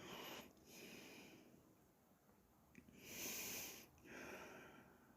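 A person breathing close to the microphone: four soft, airy breaths in and out, the loudest about three seconds in.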